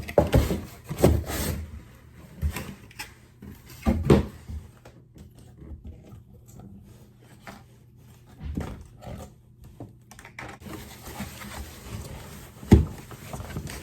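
Cardboard packaging being pulled out of a box and handled: scattered scrapes and rustles with several sudden knocks, the sharpest near the end.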